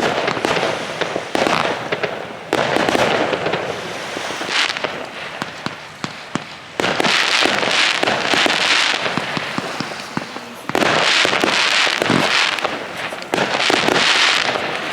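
A small fireworks display going off: sharp pops and dense crackling. A fresh loud run of crackle starts every few seconds, with the loudest runs in the second half.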